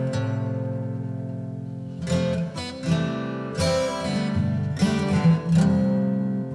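Background music of an acoustic guitar strumming chords, each chord ringing on until the next is struck; the last one fades out near the end.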